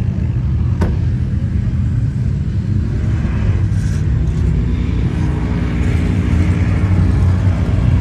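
Pickup truck engine pulling hard up a steep sand dune: a loud, steady low rumble whose pitch climbs a little past the halfway point. A single sharp click about a second in.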